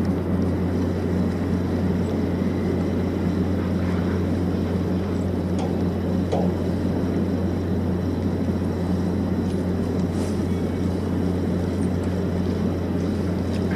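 A steady low engine-like drone with a deep constant hum and no change in pitch, with a few faint ticks over it.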